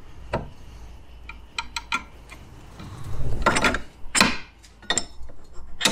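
Steel mower blade clicking and scraping against the metal cone of an Oregon 42-047 blade balancer as it is lifted off and set back on while being checked for balance. Scattered light metal ticks, with a louder scrape or two about three and a half to four seconds in.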